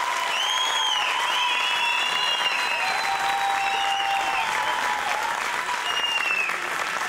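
Concert audience applauding steadily, with several long, high cheers from the crowd rising and falling over the clapping.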